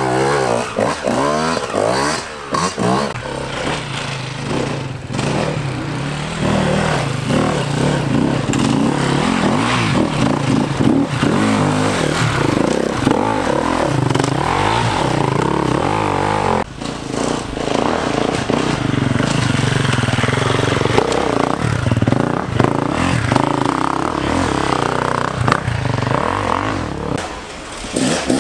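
Enduro dirt bike engines revving up and down, the pitch rising and falling in quick surges as the bikes are ridden through rough, muddy trail.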